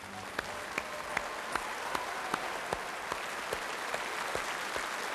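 Large audience applauding, the clapping settling into a steady beat in unison of about two and a half claps a second. It swells over the first second or two.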